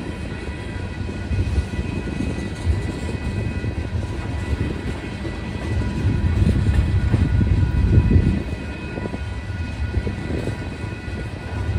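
Freight cars rolling past at a level crossing: steel wheels rumbling and clattering on the rails, swelling and easing as the cars go by. A steady high ringing from the crossing's warning bell runs over the rumble.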